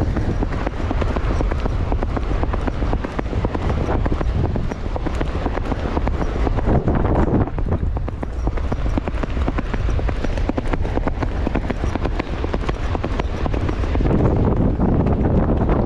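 Horse's hoofbeats at a fast, continuous gait, with wind buffeting the microphone.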